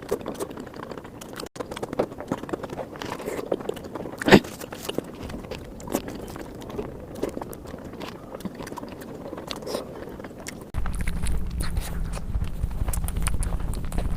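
Close-miked chewing and biting of spicy egg curry, with small wet mouth clicks and one sharp click about four seconds in. A steady low hum comes in near the end.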